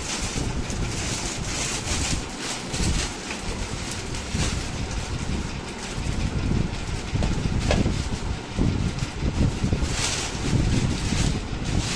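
Moving air buffeting the microphone: an uneven, gusty rumble with a few light clicks.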